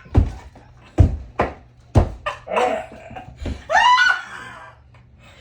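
People laughing and squealing, with a handful of sharp, heavy thumps scattered through, the loudest about a second and two seconds in.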